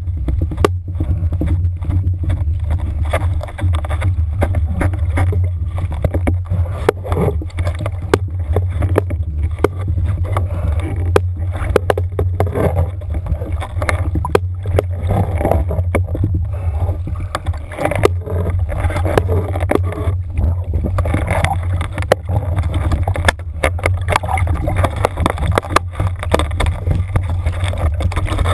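Steady low underwater rumble of a trolling boat's engine and water rushing past a submerged camera housing, with scattered clicks and knocks.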